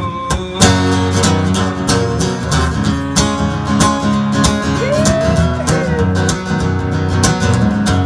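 Country song played on strummed acoustic guitar: an instrumental passage with steady rhythmic strumming between sung lines.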